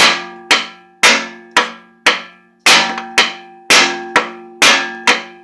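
Repeated hammer blows on the aluminum case of a 208 transfer case, about two strikes a second, each one ringing briefly, as the case halves are knocked apart.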